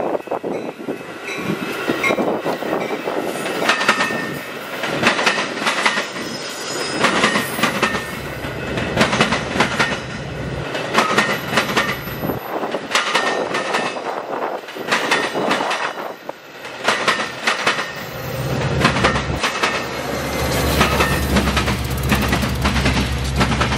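Metra commuter train of stainless bilevel coaches passing close by, its wheels clacking over the rail joints in repeated clicks. From about 18 seconds in, the low steady drone of the trailing F40PH diesel locomotives pushing at the rear joins in as they go by.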